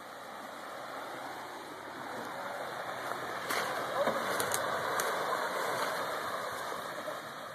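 Deep water rushing and sloshing around a truck's wheels as it is towed through a flooded trail, swelling slightly through the middle, with a few sharp clicks.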